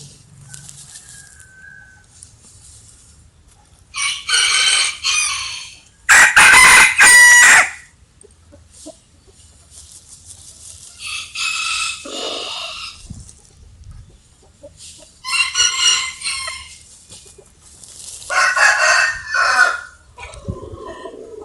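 Roosters crowing five times in turn, each crow lasting about one to two seconds. The second crow is much louder than the rest.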